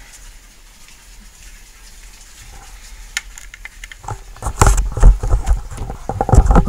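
Quiet for the first few seconds, then from about four seconds in loud, irregular rustling and knocking with low rumbles: handling noise on the microphone as the camera and the homemade air rifle are moved into aim.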